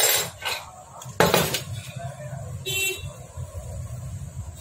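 Metal motorcycle engine parts clattering as they are handled on a workbench: two loud noisy bursts in the first second and a half. A short horn toot comes nearly three seconds in, over a steady low rumble.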